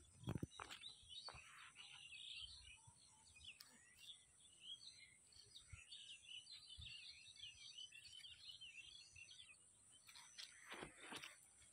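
Faint chirping of small birds, many short calls overlapping, over a steady high hiss. A few soft thumps and rustles come near the start and near the end.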